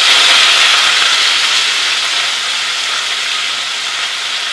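Bacon-wrapped beef pieces sizzling in hot oil in a pot: a loud hiss that jumps up at the start, then slowly eases off.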